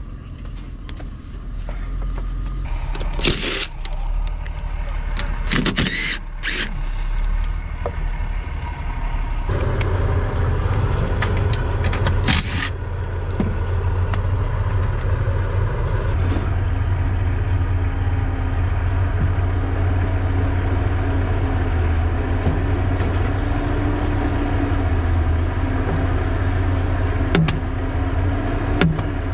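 Cat D6N bulldozer's diesel engine running, its deep steady drone growing much louder about nine seconds in and holding from there. A few short, sharp noises come before it.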